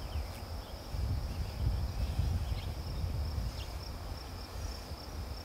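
Grassland ambience: a steady, high, pulsing insect trill over a fluctuating low rumble of wind on the microphone, with a few short chirps.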